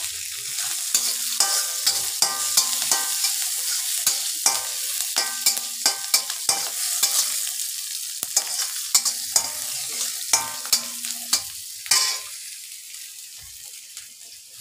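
Garlic, green chilli and spice seeds sizzling in hot oil in a steel kadhai, stirred with a steel spatula. Frequent sharp clicks and short scrapes come from the spatula against the pan. The sizzle dies down over the last couple of seconds.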